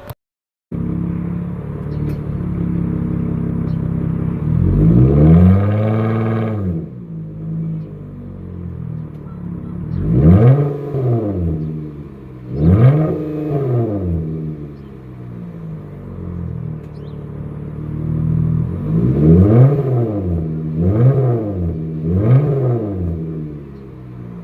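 Dodge Journey R/T's 3.6-litre V6 exhaust with the muffler deleted, idling and being revved six times: one long rev, two single blips, then three quick blips in a row near the end.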